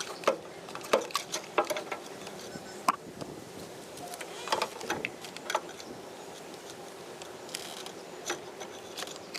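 Irregular clicks, knocks and light clatter of kitchen chimney hood parts being handled and worked on, over a faint steady hum, with a short hissing stretch near the end.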